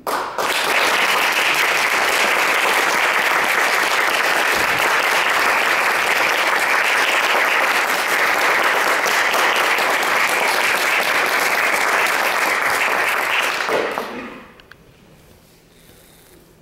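Audience applauding steadily, then dying away about fourteen seconds in.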